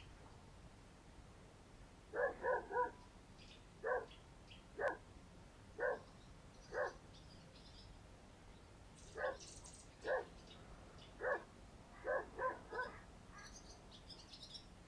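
A dog barking, about a dozen short barks: a quick run of three, then single barks roughly a second apart, a pause, and another run near the end. Birds chirp faintly behind.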